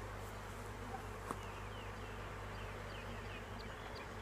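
Honeybees buzzing steadily around an opened hive, with one light click about a second in.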